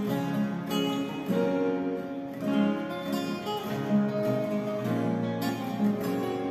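Two acoustic guitars playing together: a picked melody over bass notes and strummed chords, in a steady, unbroken rhythm.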